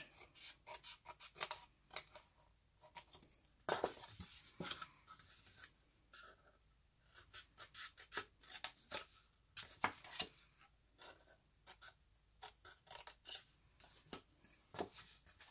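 Small craft scissors snipping through scored cardstock: a string of short, crisp snips at an uneven pace, as squares are cut out of a paper box's fold tabs.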